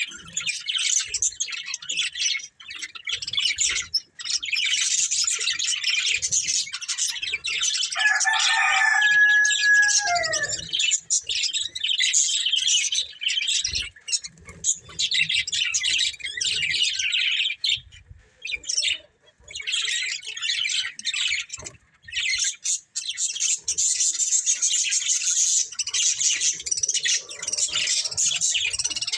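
Budgerigars chirping and chattering in a rapid, continuous stream, with a couple of short breaks past the middle. About eight seconds in, one lower, held call sounds for about two seconds and falls away at its end.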